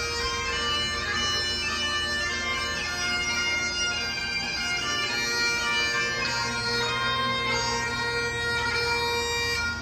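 Bagpipes playing a tune over a steady drone, the music stopping right at the end.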